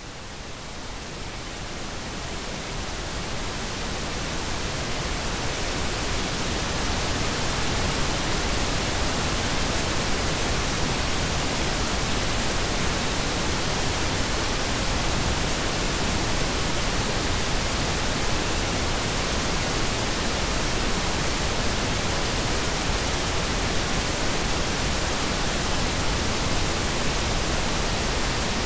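Pink noise: an even, featureless hiss across the whole range, fading up over the first several seconds and then holding steady.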